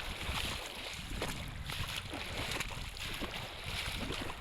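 Steady wind buffeting the microphone over sea waves washing against shore rocks.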